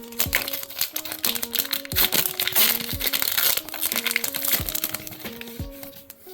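Background music with a short-note melody and a deep beat about once a second, with the crinkling of a foil booster pack being handled and opened, busiest around the middle.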